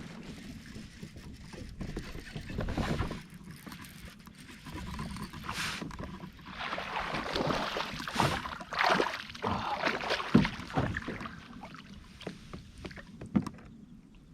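Irregular water splashing and hard knocks on a kayak while a hooked largemouth bass is fought alongside, busiest in the middle of the stretch with a few sharp knocks near the end.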